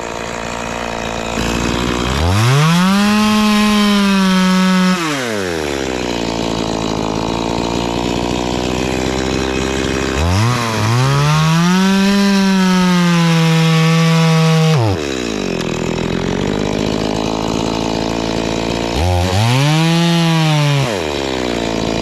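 Two-stroke chainsaw revved up to full throttle three times, a few seconds each, and dropping back to idle between, cutting into the trunk of an anjili (wild jack) tree.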